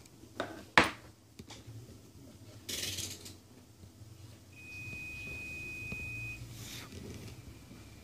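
A sharp click a little under a second in, a short hiss about three seconds in, then a single steady high-pitched beep lasting about two seconds, over a low hum.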